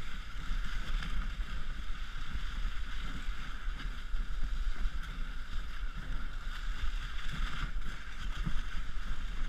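Moving dog sled on a snow trail: a steady hiss of runners and skis sliding over snow over a choppy, low rumble of wind and jolting on the sled-mounted microphone.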